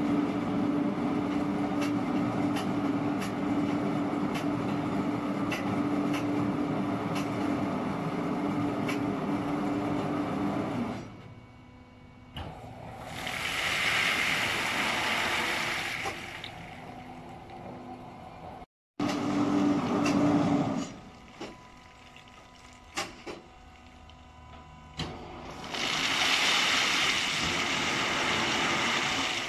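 Mobile crane's engine running with a steady hum and light ticking while it works a clamshell grab, falling away after about ten seconds. Later, loose coal pours out of the opened grab onto a coal heap with a rushing rattle, once around the middle and again near the end.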